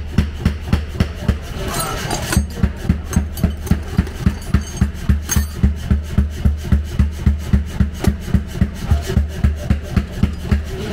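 Steady, evenly spaced heavy hammer blows on metal, a little under three a second, with a rasping noise between them.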